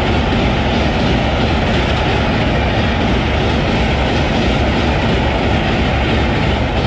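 Express train of LHB passenger coaches crossing a steel girder railway bridge at high speed: the wheels and bogies make a loud, steady running noise on the bridge, with a faint steady ringing tone above it.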